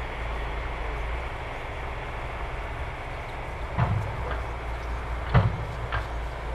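A steady low mechanical rumble with a few sharp knocks in the second half.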